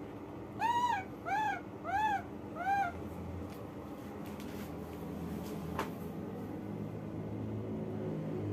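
Baby macaque giving four short, high coo calls in quick succession, each rising and then falling in pitch, about two-thirds of a second apart.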